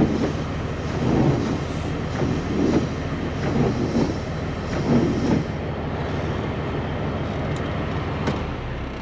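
Windshield wipers sweeping across a cabover truck's flat windshield in a steady rhythm, a little more than one stroke a second, stopping about five and a half seconds in. Under them the truck's Caterpillar 3406B diesel idles steadily.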